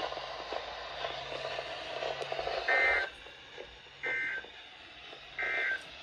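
Weather radio on the NOAA weather channel playing hissy broadcast audio, then three short identical two-tone data bursts about 1.4 seconds apart: the EAS end-of-message code that closes a weekly test alert.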